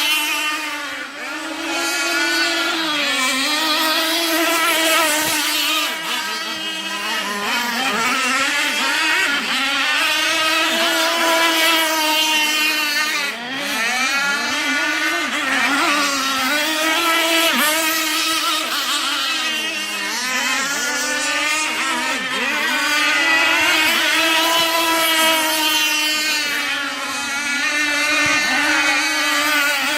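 Petrol engine of a radio-controlled catamaran speedboat running at high revs, its high engine note wavering up and down with the throttle, with several brief dips in pitch.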